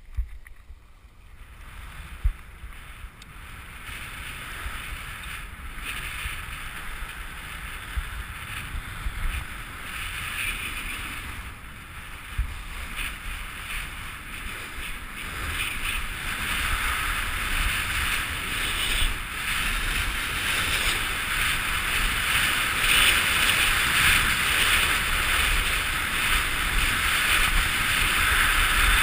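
Skis hissing and scraping over groomed snow, with wind buffeting the microphone of the helmet-mounted camera, growing steadily louder as the skier picks up speed to about 65 km/h. A single sharp knock about two seconds in.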